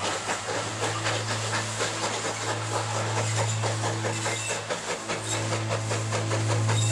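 Steam locomotive chuffing, with hissing steam in a steady rhythm of puffs over a steady low hum.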